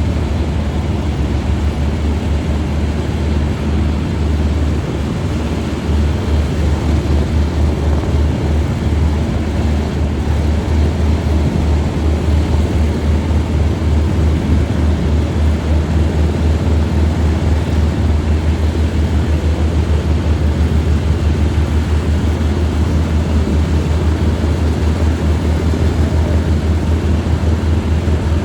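Lockheed P-38 Lightning's twin Allison V-1710 V-12 engines running, a deep rapid throbbing that grows a little louder and steadier about six seconds in.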